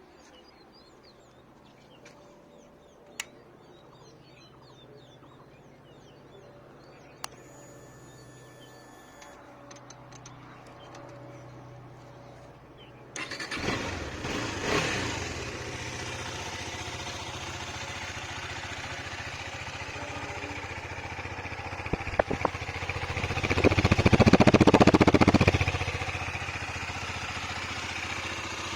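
KTM Duke 250 BS6 single-cylinder engine through its stock exhaust. After a quiet stretch with a couple of faint clicks, it starts suddenly about halfway through and settles into a steady idle. It is revved once for a couple of seconds near the end, then drops back to idle.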